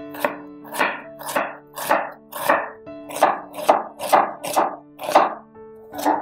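Chef's knife slicing and chopping an onion on a wooden cutting board: sharp knocks of the blade through the onion onto the board, about two a second, with a short pause near the end.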